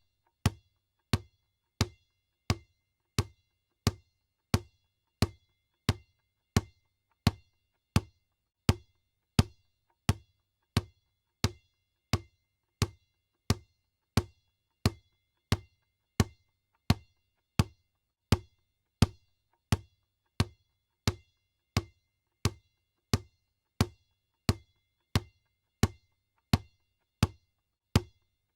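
Basketball bouncing on a hard floor at a steady, even pace, about three bounces every two seconds. Each bounce is a short low thud with a faint ring.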